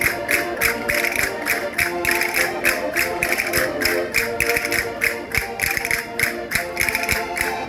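Concertinas playing a lively dance tune: steady reedy chords, with a quick, even beat of sharp taps about four a second.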